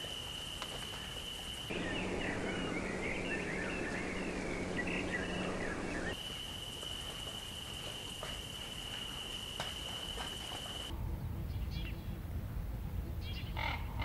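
Outdoor wild-animal sounds in abrupt spliced segments. A steady high-pitched trill is cut twice by other stretches: first a busier patch of chattering calls over a low hum, then rougher low noise with a few short chirps near the end.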